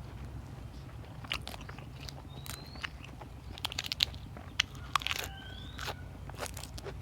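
Close-up crunchy biting and chewing of fresh raw vegetables, with sharp crunches at uneven intervals. A short rising chirp sounds twice in the background.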